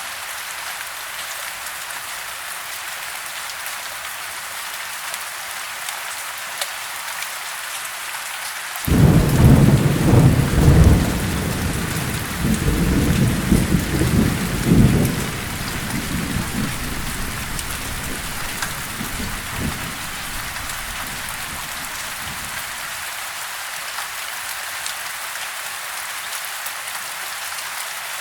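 Steady rain falling, with a thunderclap about nine seconds in that breaks sharply and rolls on as a low rumble, swelling again a few seconds later and then dying away under the rain.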